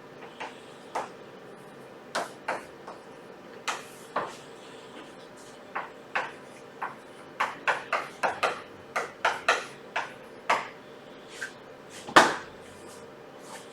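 Irregular light taps and clicks, about two dozen, coming faster and closer together toward the middle, with one louder knock near the end, over a faint steady hum.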